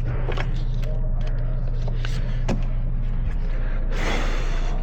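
Jeep Liberty 3.5-litre V6 idling steadily with light clicks over it and a short hiss about four seconds in. The cylinder 1 ignition has just been repaired, while cylinder 5 is left with its misfire for now.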